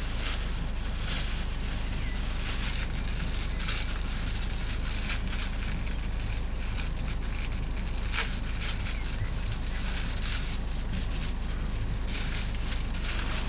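A heavy camper van under way: a steady low rumble of engine and road, with scattered crackles and rattles over it.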